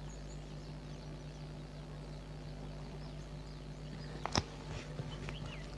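Faint steady low hum with a few short bird-like chirps and one sharp click a little after four seconds in.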